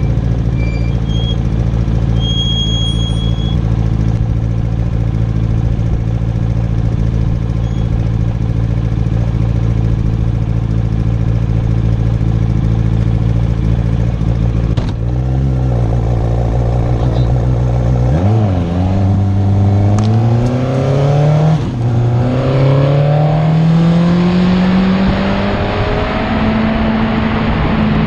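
Racing sidecar outfit's engine idling steadily, blipped briefly about halfway, then pulling away under hard acceleration: the pitch climbs, drops once at an upshift and climbs again.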